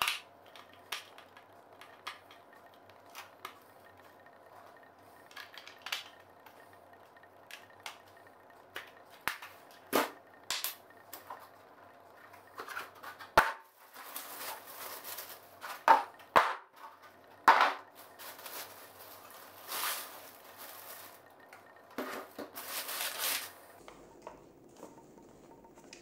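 Hard plastic vacuum-cleaner parts clicking and knocking as they are handled, then, about halfway through, clear plastic packaging crinkling and rustling in several bursts, with more knocks among them.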